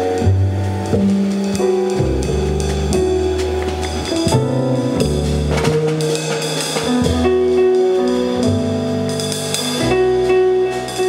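Jazz piano trio music: piano over a bass line that changes note every second or so, with a drum kit keeping time on cymbals and drums.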